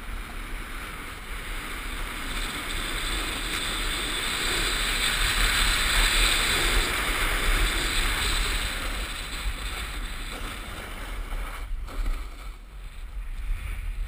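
Skis sliding and carving over packed snow: a steady hiss that swells over the first several seconds and then eases off, dropping briefly near the end. Wind rumbles on the microphone underneath.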